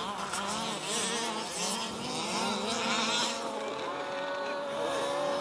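Several 1/5-scale petrol RC buggies racing, their small two-stroke engines buzzing with pitch rising and falling as they throttle up and back off.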